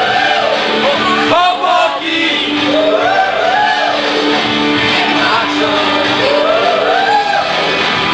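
Girls singing a song together into handheld microphones over sustained backing music, loud and amplified.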